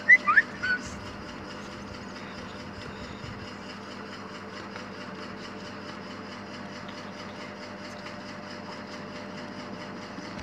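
Steady mechanical hum, with a few short, high, rising chirps in the first second.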